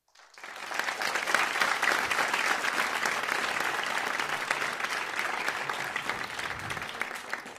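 Audience applauding, swelling up quickly within the first second and easing off slightly toward the end.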